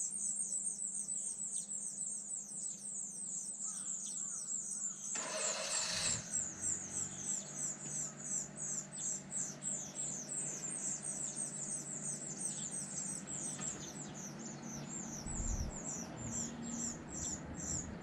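A brood of nestlings calling to be fed: thin, high, falling cheeps repeated in a fast run, a few each second. A short rustling burst comes about five seconds in.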